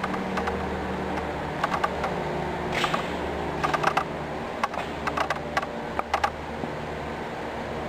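Irregular clusters of short, sharp clicks and taps, like typing, over a steady low hum.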